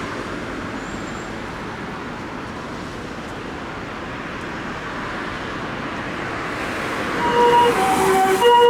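Road traffic noise, then about seven seconds in an ambulance's two-tone 'comfort siren' starts up, alternating a high and a low note and growing louder. It is a Toyota HiMedic's siren, driven by a TCD 'e deck' siren amplifier.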